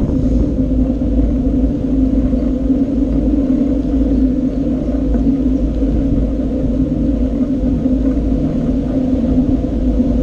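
Steady wind and road rumble picked up by a GoPro Session camera riding along on a bicycle, with a constant low hum and no breaks.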